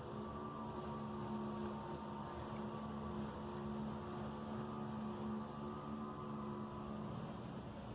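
A steady low droning hum with a few held tones over a background hiss, fading out near the end.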